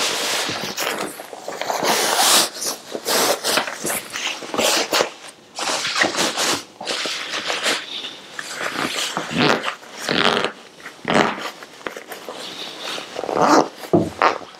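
Fabric rustling and swishing in irregular bursts as a fleece mattress cover is pulled over a foam dog-bed mattress and smoothed into place.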